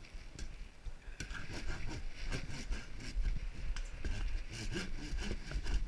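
Coarse-toothed sanding tool scraping against a small wooden log in repeated, irregular strokes, rasping away the weathered outer wood. The strokes start about a second in and get louder.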